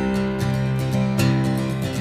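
Background music: an acoustic guitar strumming chords in a steady rhythm, the instrumental opening of a song before the vocals come in.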